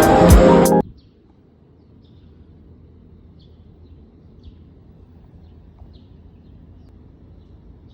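Background music with a steady beat cuts off suddenly under a second in, leaving faint outdoor ambience with a low hum and scattered short high bird chirps.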